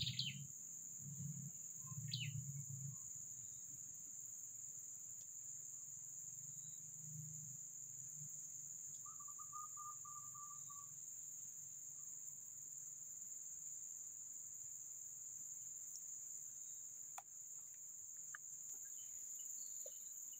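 Forest insects droning steadily at a high pitch, with a couple of short bird chirps in the first two seconds.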